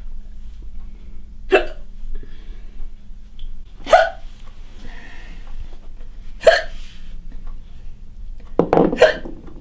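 A woman hiccupping, four sharp hiccups about two and a half seconds apart, the last one longer and doubled. These are the repeated hiccups of a chronic hiccup condition that has lasted over a decade.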